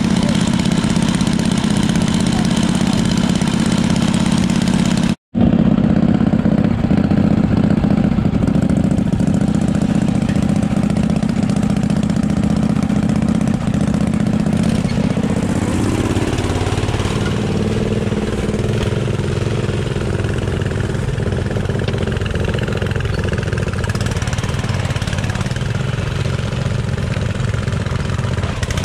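Motor vehicle engine running steadily. The sound breaks off for an instant about five seconds in, and about halfway through the engine note rises and then holds at the higher pitch.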